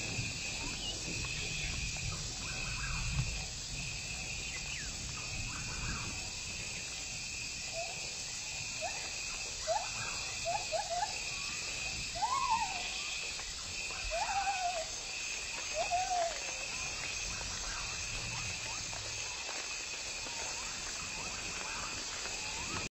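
Forest ambience: an insect keeps up a steady pulsing high-pitched trill, and from about eight seconds in a bird gives a series of short rising-and-falling calls, half a dozen or so, ending around sixteen seconds.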